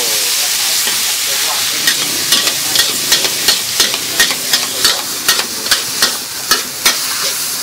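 Wide flat rice noodles sizzling in a hot wok with steady hissing steam. From about two seconds in, a metal ladle and spatula clack against the wok about three times a second as the noodles are stir-fried.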